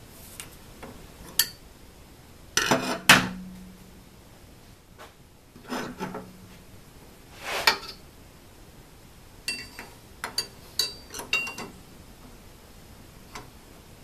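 Metal tools and parts knocking and clinking as they are handled and set down on an aluminium frame. The loudest knocks come in a cluster about three seconds in, and a quick run of sharp, ringing clinks follows around ten to eleven seconds.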